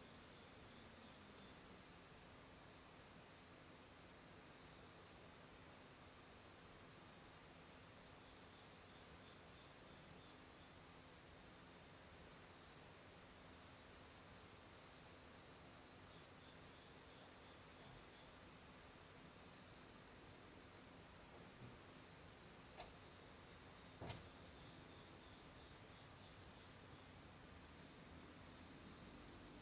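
Crickets chirping: a faint, steady high-pitched trill with regular chirps, and a couple of soft clicks about three-quarters of the way in.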